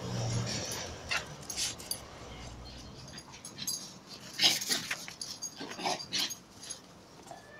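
Puppy at play: a low growl in the first moment, then scattered short knocks and rustles, the sharpest about four and a half seconds in.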